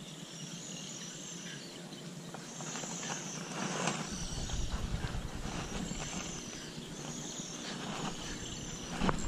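Insects calling around a pond in repeated high-pitched trilling pulses, about one every second or so. A low rumble joins about four seconds in, with a few soft clicks of handling just before it.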